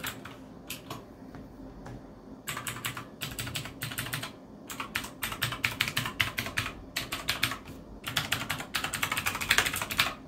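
Typing on a Redragon Kumara K552 mechanical keyboard: rapid keystrokes in several bursts of about one to two seconds each, with short pauses between.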